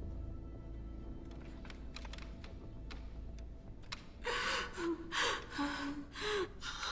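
A woman sobbing, with short gasping breaths and whimpers starting about four seconds in. Before that there is a low rumbling drone with a few faint clicks.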